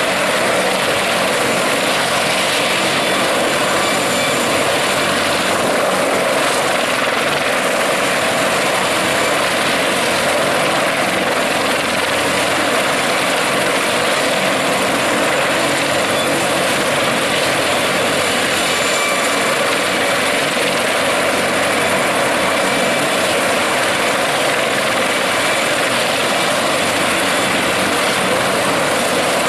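Sikorsky CH-53E Super Stallion helicopter running: a loud, steady noise of its turbine engines and rotor that neither rises nor falls.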